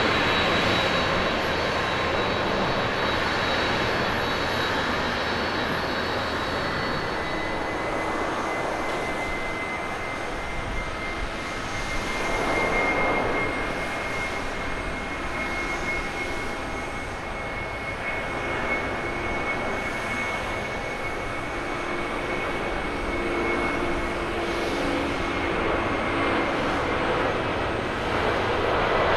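Jet airliner engines at takeoff power: a twin-jet climbing away, then, from about eight seconds in, a Boeing 767-300ER's engines on its takeoff roll, a steady rumble with a high whine held over it.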